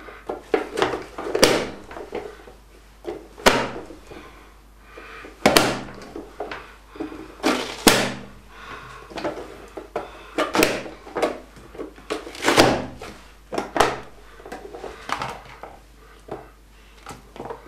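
Nicer Dicer hand chopper with its small-dice insert, its hinged plastic lid pressed down again and again to force bell pepper pieces through the blade grid. Each press gives a sharp plastic clack, repeated a second or two apart.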